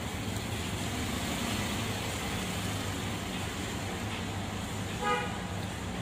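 Steady road-traffic rumble, with a short vehicle horn toot about five seconds in.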